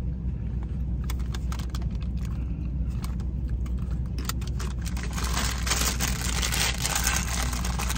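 Crinkling and crackling of a plastic snack bag being handled, growing denser and louder in the second half, over a steady low hum.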